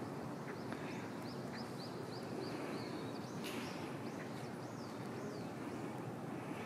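A small bird chirps in quick series of short high notes, about three a second, breaking off a little after halfway and then chirping again, over a steady low hum of outdoor background noise. A brief hiss-like burst of noise comes about halfway through.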